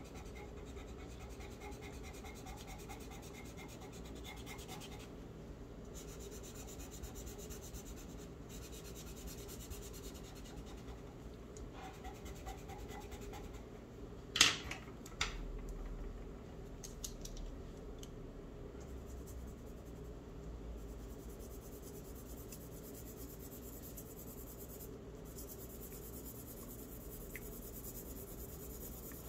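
Charcoal pencil scratching faintly and steadily on drawing paper as lines are drawn, with a sharp tap about halfway through and a smaller one just after.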